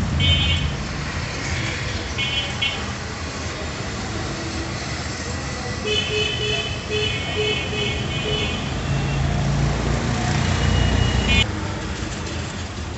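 Street traffic running with a steady rumble, broken by several runs of short, high-pitched horn beeps.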